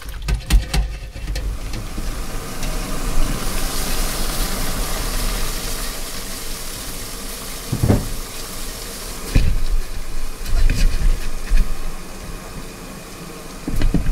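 Steady rushing hiss of a large aluminium steamer pot of water heating on the stove, with a few sharp knocks as the bamboo steamer is handled and set on the pot, about 8 s in and again near the end.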